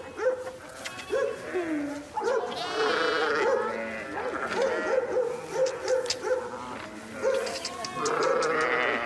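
A flock of sheep bleating, several quavering calls overlapping, loudest about two and a half seconds in and again near the end.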